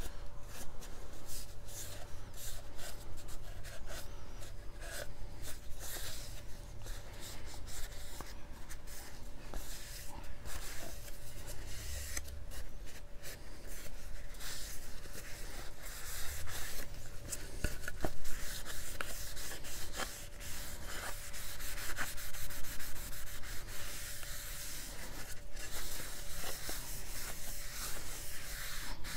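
Cloth rag wiping tung oil over a carved wooden sign in repeated, irregular rubbing strokes.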